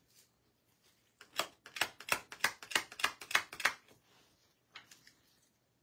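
A quick run of about ten light clicks or taps, roughly four a second, then two more near the end, from handling nail-stamping tools (clear stamper, metal stamping plate).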